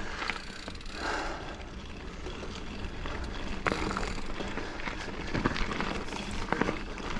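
Giant Fathom mountain bike being ridden along a dirt trail: tyres rolling over the ground with a steady rush of noise, and occasional knocks and rattles from the bike.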